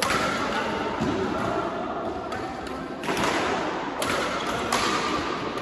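Badminton rally: rackets hitting the shuttlecock in a string of sharp clicks about every half second to second, ringing in a large, echoing hall over a steady background din.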